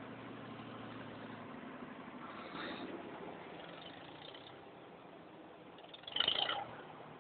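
Old engine idling steadily. A short, louder burst of noise comes about six seconds in.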